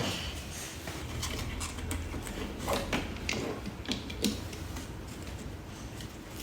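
Scattered light clicks and taps of small parts being handled, bunched in the middle seconds, over a low steady hum.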